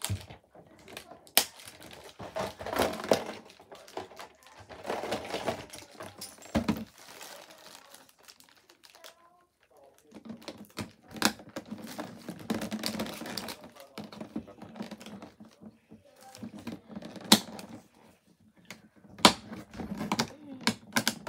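Hard plastic parts of a Beyblade stadium clicking and knocking irregularly as they are handled and snapped together, a few clicks much louder than the rest, with plastic packaging crinkling.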